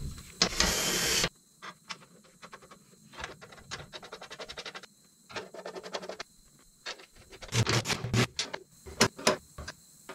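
Small metallic clicks, ticks and scrapes as Loctite-coated bolts are started by hand into a steel fuel-tank access cover on a Cat D3 dozer and then turned with a wrench. A brief loud rushing scrape comes about half a second in.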